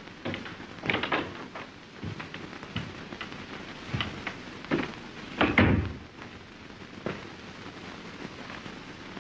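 Footsteps and scattered knocks as someone walks into a room, with a heavier thud about five and a half seconds in, over the steady hiss of an old film soundtrack.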